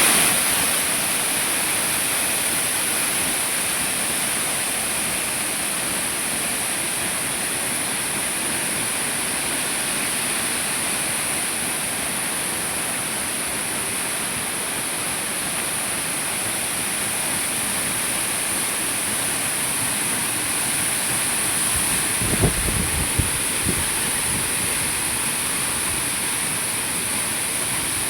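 Waterfall rushing steadily, an even wash of falling-water noise. A few brief low thumps come about three-quarters of the way through.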